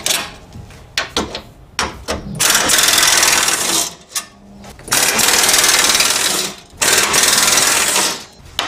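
Pneumatic air ratchet with a Torx bit running in bursts as it backs out screws: a few short bursts, then three long runs of about two seconds each.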